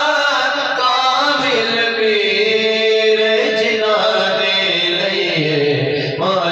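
Islamic devotional chanting, long drawn-out sung notes that rise and fall without break. A lower held note comes in near the end.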